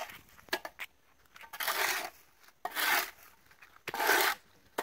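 Shovel scraping wet soil and dead leaves off the road surface: three rough scrapes about a second apart, after a few light knocks.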